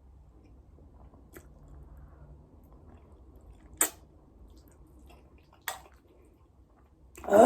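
Faint chewing of spicy noodles, with two sharp clicks about four and nearly six seconds in. Near the end a loud, drawn-out groan from the eater, a reaction to the heat.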